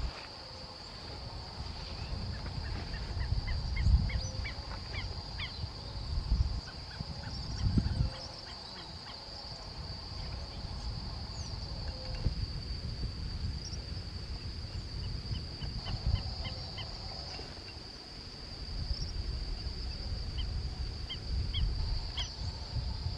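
Birds calling repeatedly in short, high notes over a steady high-pitched insect drone, with irregular low rumbles, the loudest about 4 and 8 seconds in.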